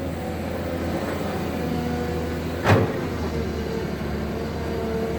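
Cat 320 excavator's diesel engine and hydraulics working under heavy load with a steady drone and a held whine, with one sharp clank about halfway through. The machine is straining to dig hard, caliche-laden ground.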